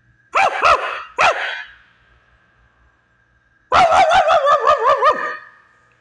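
A person imitating a Maltese's barking with their voice: three high barks in the first second and a half, then a quick run of about ten short barks lasting a second and a half.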